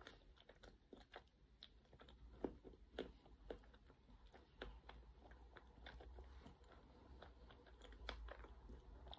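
Faint chewing of a mouthful of friand with a hunk of chocolate in it: soft, irregular mouth clicks and smacks.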